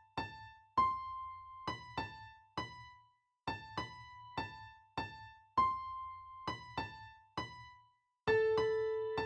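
Background score music: a sparse melody of single high keyboard notes with an electric-piano-like tone, each struck and left to die away, broken by two short pauses. Near the end a held lower note comes in beneath the melody.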